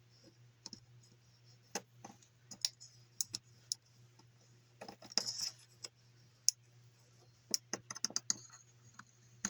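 Irregular small clicks and taps of small hard parts being handled, with a brief scrape about five seconds in, over a steady low hum.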